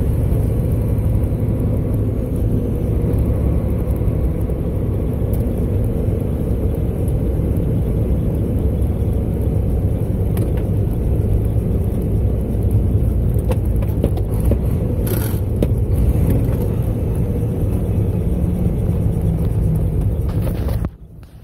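Dump truck's diesel engine running, heard from inside the cab as a steady low rumble with a few short knocks and rattles; it cuts off suddenly just before the end.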